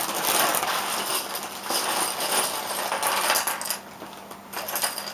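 Loose plastic pieces of an unassembled MoYu HuanYing speedcube clattering and clicking against each other as they are handled, for about four seconds, then going quieter.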